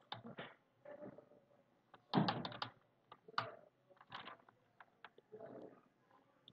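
Computer keyboard being typed on in short runs of keystrokes, the loudest a quick run about two seconds in.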